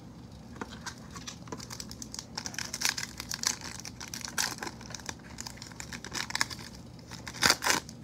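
A foil trading-card pack wrapper crinkling and tearing as it is ripped open by hand. The crackling is dense and irregular, with a louder double rip near the end.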